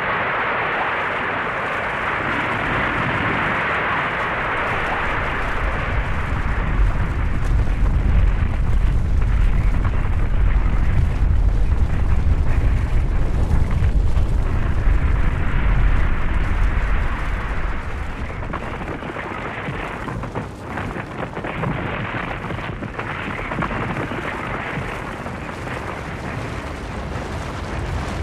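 Snow avalanche: a continuous rushing rumble. A hissing rush comes first, then a deep rumble builds and is loudest from about six to seventeen seconds in before easing off.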